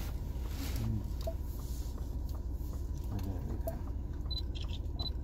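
Steady low in-cabin rumble of the Ford Ranger Raptor's 2.0 bi-turbo EcoBlue diesel idling while parked, with two short high electronic beeps near the end.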